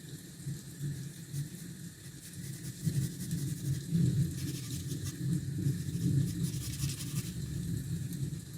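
Low rolling rumble of thunder under a steady hiss of rain.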